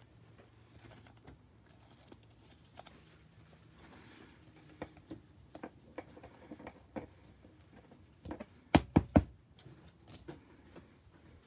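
Basketball trading cards being handled and flipped through, with light clicks and taps as cards slide and are set down on the tabletop. About nine seconds in comes a quick run of three louder knocks.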